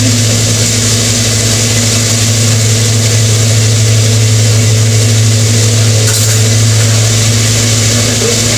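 Chicken deep-frying in woks of oil over gas burners, giving a constant hiss, under a steady low machine hum.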